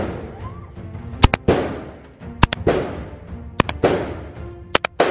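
M4-style carbine fired on semi-auto: four single shots about one every second and a quarter, each with a sharp crack and a long echo off the walls of an indoor range.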